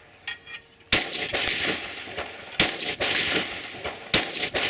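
Three rifle shots about a second and a half apart, each followed by a long echoing tail.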